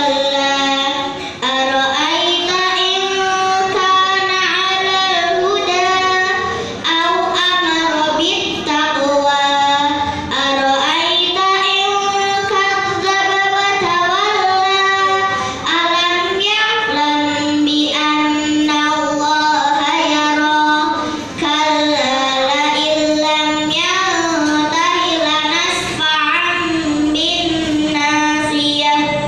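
A schoolgirl reciting the Qur'an from memory in a melodic chant, amplified through a microphone. The phrases are long, with held and gliding notes and short breaks for breath between them.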